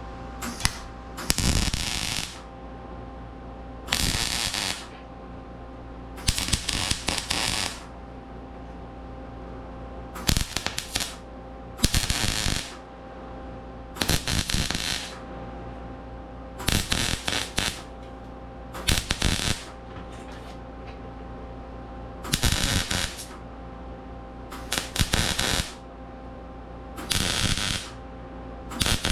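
Welder laying a series of short tack welds on a steel sandblaster tank: about a dozen brief crackling arcs, each under a second or so, with short pauses between them, over a steady background hum.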